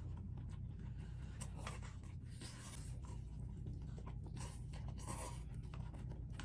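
Someone eating ramen noodles: soft clicks and scrapes from eating, with a few short noisy slurps, over a steady low hum.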